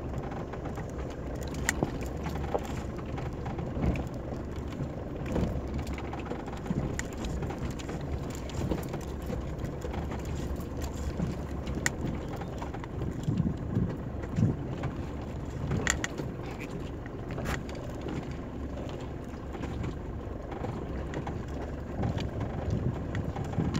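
Mitsubishi Pajero Mk2's engine running at low speed, heard from inside the cab, with scattered clicks and knocks as the vehicle jolts down a rocky dirt track.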